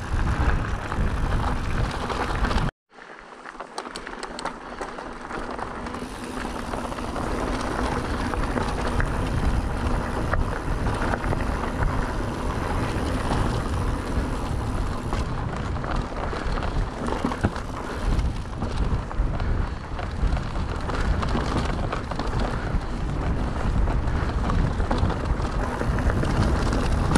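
Riding noise from a mountain bike: wind buffeting the GoPro's microphone over the rumble and crunch of tyres rolling on a trail. The sound cuts out abruptly about three seconds in, then builds back up over the next few seconds and runs on steadily.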